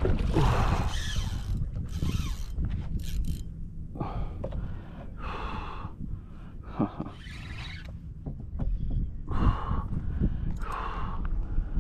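A kayak angler breathing hard and gasping with exertion while fighting a big snook: a loud breath every second or so. A low rumble runs underneath from wind or handling on the microphone.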